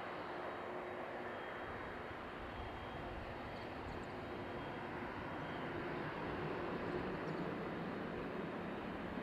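Boeing 767-300 airliner's jet engines running with a steady rushing noise as it rolls along the runway after landing. The sound swells a little about two-thirds of the way through.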